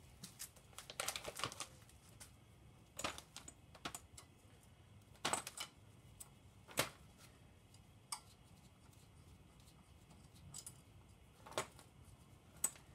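Faint, irregular light clicks and knocks, a dozen or so spread out with a short cluster about a second in: small metal engine parts and hand tools being handled on a workbench.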